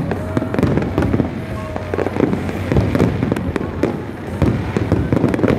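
Fireworks display: a dense, continuous barrage of bangs and crackles from many aerial shells bursting in quick succession.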